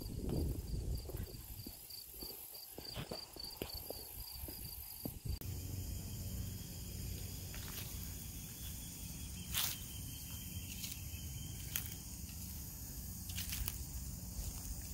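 Outdoor ambience with insects: a high chirp repeating in a quick, even run that stops about five seconds in, then a steady high buzz. Under it runs a low rumbling noise, and a few sharp clicks come near the end.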